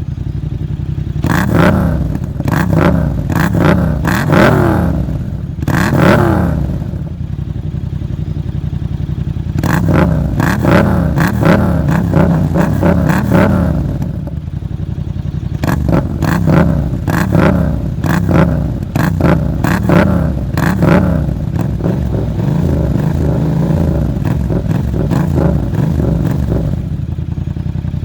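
Yamaha MT-07 (2022) 689 cc parallel-twin engine through a Mivv GP Pro exhaust with the dB killer removed, blipped in repeated quick throttle revs between stretches of steady idle.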